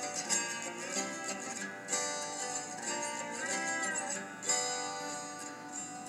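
Background music played on plucked strings, guitar-like, with a few notes that bend in pitch.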